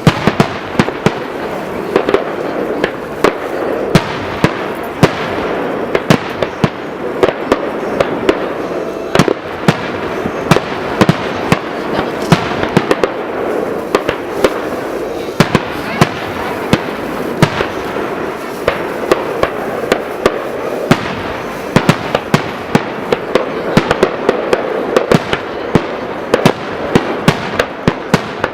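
Fireworks display in full barrage: sharp bangs several times a second over a continuous crackling haze.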